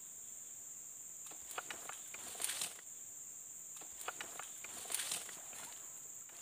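Insects droning steadily at one high pitch, with two short spells of soft clicking and rustling close by, about a second in and again around four seconds in.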